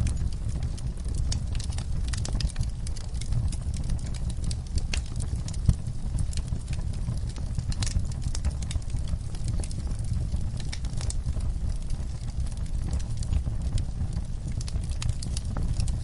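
Wood fire crackling in a fireplace: a steady low rumble of flame with many small snaps and pops, one louder pop about six seconds in.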